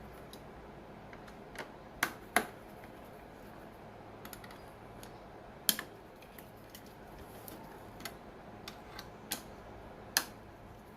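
Irregular sharp clicks and light taps of metal and plastic parts being handled while a server CPU heatsink is refitted; four clicks stand out, spaced unevenly, over a faint steady hum.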